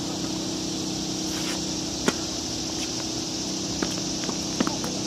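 Tennis ball struck by a racket with one sharp pop about two seconds in, then fainter ball hits and bounces from farther off near the end, over a steady low hum and a high hiss.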